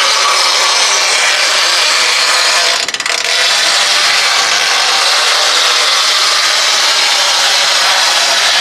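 Cricket RX5 golf cart's tires rubbing against the side ledges of metal loading ramps as the cart rolls down them, a loud, steady squeaky rubbing that breaks off briefly about three seconds in. The ramps are squeaky because they are just the width of the tires.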